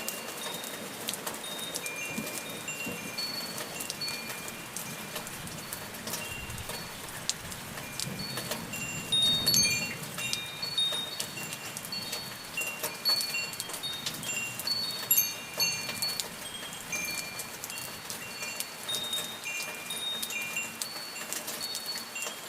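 Rain falling steadily with wind chimes tinkling: many short, scattered high chime notes ring out over the hiss and patter of the rain.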